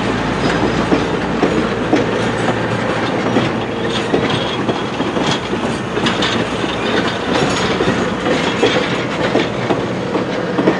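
Passenger railcars rolling past: a steady rumble of steel wheels on the rails with irregular clicks and clatter from the trucks.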